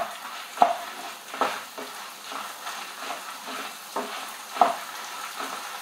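A wooden spatula stirring coriander seeds and dried red chillies in coconut oil in a nonstick wok, dry-roasting the spices for a sambar masala. A light sizzle runs under several sharp scrapes of the spatula against the pan.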